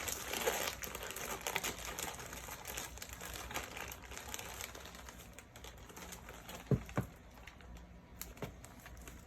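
Plastic packaging of a bag of banana chews candy crinkling as it is handled, busiest in the first few seconds and thinning out, with a soft knock about seven seconds in.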